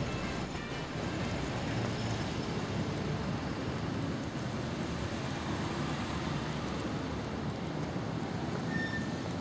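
Steady street traffic noise: an even rumble of road vehicles.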